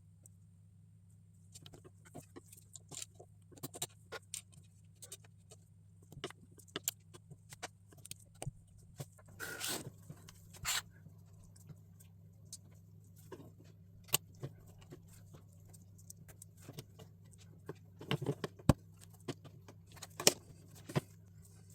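Plastic LEGO pieces clicking and clattering as they are handled and pressed together, in scattered sharp clicks with a denser rattling clatter about ten seconds in. A low steady hum runs underneath.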